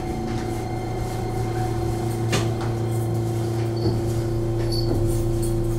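Keihan commuter train heard from the driver's cab: a steady electrical hum with a few sharp clicks, one about two and a half seconds in, as the train comes in to its terminus.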